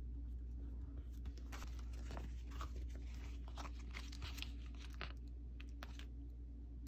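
Glossy sticker sheet crinkling and crackling as it is handled and a sticker is peeled off its backing with metal tweezers, with a few sharp clicks mixed in. The crackling starts about a second in and dies down to scattered clicks near the end.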